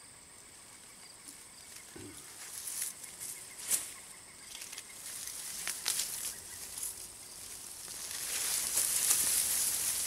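Potato plant being pulled up by hand from a mulched bed, with scattered snaps and clicks of stems and dry mulch. The rustle of leaves, mulch and falling soil grows louder near the end.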